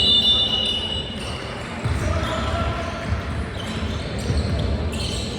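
A basketball is being dribbled on an indoor court: repeated low thuds under the noise of players and spectators. A high, steady tone is held through the first second.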